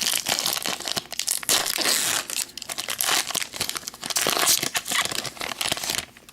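Wrapper of a hockey card pack being torn open and crinkled in the hands, a dense run of crackling that stops abruptly near the end.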